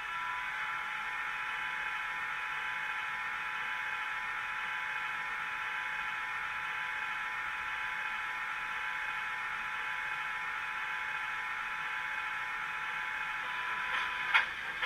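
Class 37 English Electric diesel engine sound from an ESU Loksound 3.5 sound decoder, played through the small sealed speaker of a Bachmann OO-gauge model: the engine idling steadily with high, even whistling tones. Near the end a run of sharp clicks and rattles starts.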